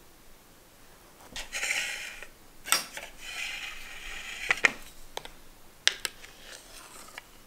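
Cake server scraping under a slice of cake and clinking against the tin and a plate as the slice is cut out and served: two scraping passes and several sharp clicks.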